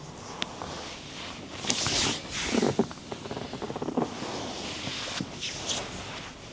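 Close-up massage handling sounds: hands rubbing and sliding over skin and cloth in uneven swishes, with a few short clicks and light taps.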